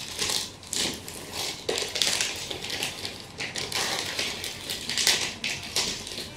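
Clear plastic packet crinkling and rustling in the hands as it is handled and pulled open, in irregular crackly bursts.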